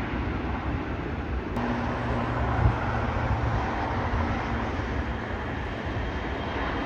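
Jet airliner engine noise from an airport runway: a steady rumble and hiss. The sound changes abruptly about a second and a half in, after which a faint low hum runs under it.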